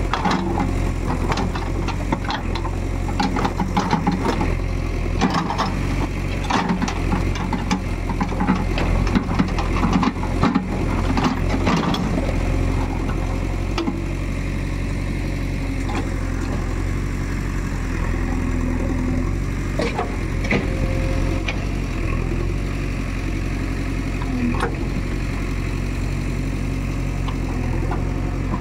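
JCB 3DX backhoe loader's diesel engine running steadily, with irregular knocks and clatter through roughly the first half that then die away, leaving the even engine drone.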